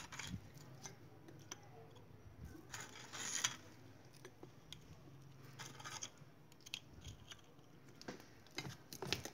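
Faint rustles and light scrapes of gloved hands picking round biscuits off a plate and laying them on custard and fruit in a small glass bowl. There are several short scuffs, the strongest about three seconds in and a cluster near the end.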